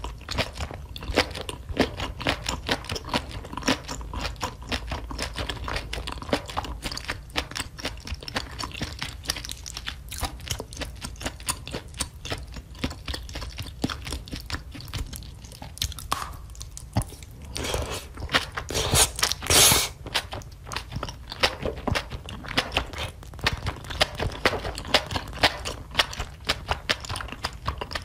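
Close-miked chewing of enoki mushrooms in thick red sauce: wet mouth sounds with many small crunches and clicks. About two-thirds of the way through comes a louder noisy rush lasting about a second.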